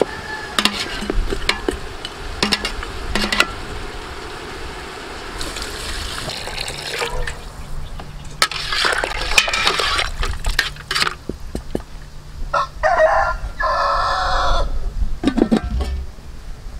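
A metal ladle clinking against a large aluminium stockpot and stirring the broth of a braise, with liquid sloshing. A rooster crows about three-quarters of the way through.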